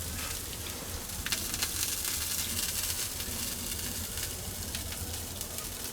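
Spanish mackerel sizzling on a grill over wood-fire charcoal, its fat dripping onto the hot coals. A steady hiss with scattered sharp crackles.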